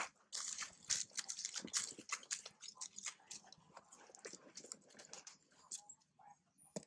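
Dry fallen leaves crackling and rustling underfoot as a monkey walks across leaf-strewn ground: a quick run of sharp crunches in the first few seconds, thinning out toward the end.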